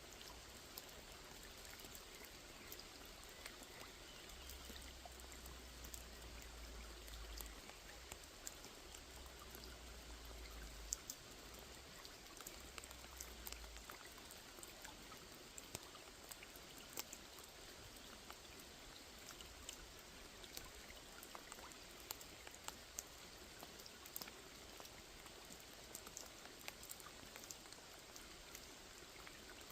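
Rain falling on a small lake: a faint, steady hiss dotted with many separate, distinct drop ticks.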